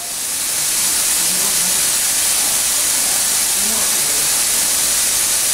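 A loud, steady, high hiss of gas escaping under pressure, starting abruptly and holding level, with faint voices beneath it.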